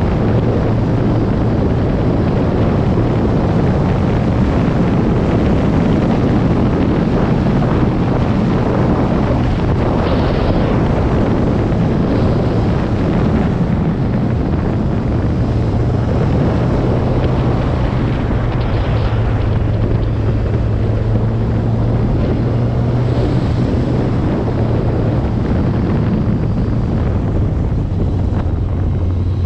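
Vehicle engine running steadily under way, a constant low drone, with heavy wind buffeting the microphone.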